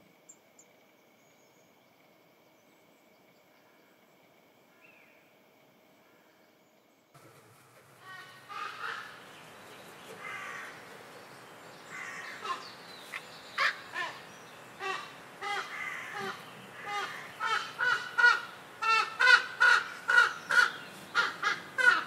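Near silence for the first seven seconds, then a common raven calling: short, harsh calls that come closer together and louder toward the end, several a second in the last few seconds.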